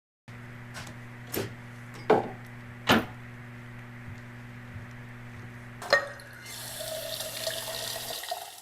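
A few sharp knocks and clatters, then near the end water running from a tap for about two seconds, over a steady low electrical hum.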